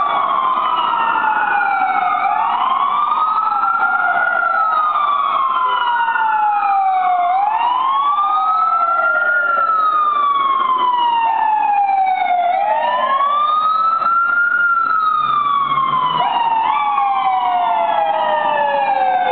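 Fire apparatus sirens wailing as the fire engine and tower ladder respond. More than one siren sounds at once, their slow wails overlapping; each rises over about two seconds and falls away over about three, again and again.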